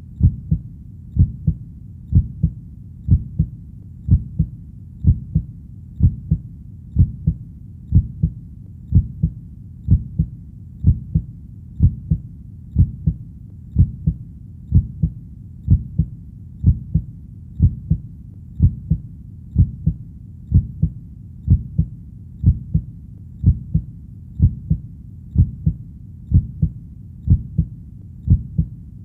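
Heartbeat sound beating at a slow, steady rate of about one beat a second, each beat a low double thump (lub-dub) over a faint steady hum.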